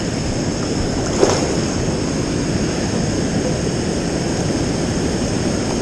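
Steady rushing of a river's rapids and small waterfall, a constant roar of white water. A brief faint knock a little over a second in.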